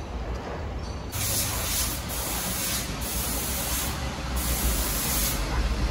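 Repeated bursts of spraying hiss, each about a second long with short gaps, starting about a second in, over a low steady hum.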